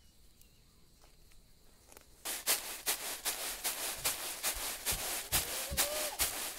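Hand-milled soybean grits rattling and rustling in a round bamboo winnowing tray shaken by hand, starting about two seconds in as quick rhythmic strokes, about four or five a second. The shaking separates the husks from the grits.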